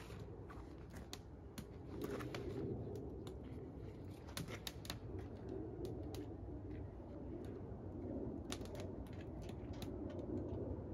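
Wood campfire crackling, with irregular sharp snaps and pops.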